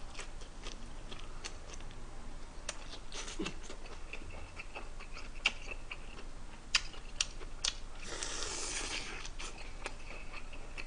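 Close-up eating sounds: chewing and mouth noises, with scattered sharp clicks of metal chopsticks against the dishes. About eight seconds in there is a short rushing noise lasting about a second.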